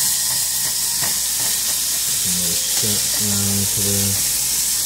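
Cubed steak searing in hot bacon fat in a pan, sizzling steadily while a spatula stirs and turns the pieces.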